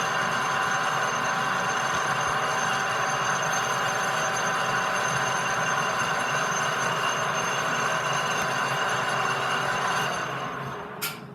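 A machine running steadily with a whining hiss, winding down about ten seconds in, with a sharp click near the end.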